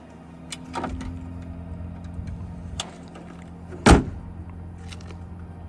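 A car panel slammed shut with one loud bang about four seconds in, preceded by a few light clicks and handling knocks, over a steady low hum.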